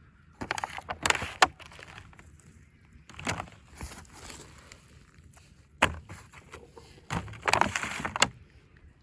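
Handling noise from fallen lemons and limes being picked up off the ground: several bursts of rustling and crackling, with a single sharp knock about six seconds in.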